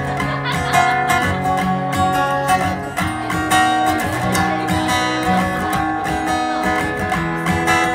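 Acoustic guitar strummed in steady chords, played live.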